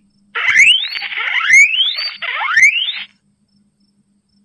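Guinea pig wheeking: three squeals in quick succession, each rising steeply in pitch.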